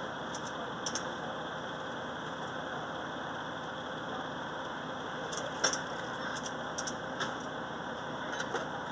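A steady mechanical running noise with scattered sharp metallic clinks as firefighters work hydraulic rescue tools against the wrecked car. The clinks come twice in the first second, then as a cluster of several from about five and a half seconds on.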